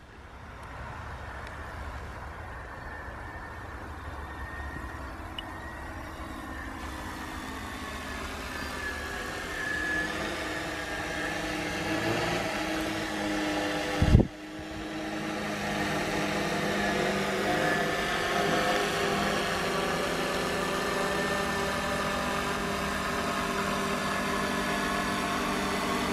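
3D-printed quadcopter's electric motors and propellers buzzing in flight, a many-toned hum that grows louder as the drone comes closer overhead. A brief loud thump about fourteen seconds in.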